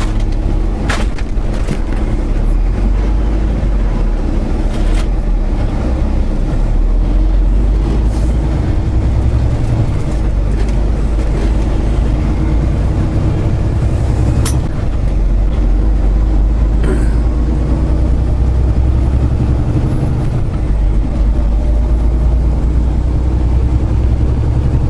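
Semi truck's diesel engine running steadily, heard from inside the cab as a deep drone that shifts up and down in level a few times, with a few short clicks and knocks.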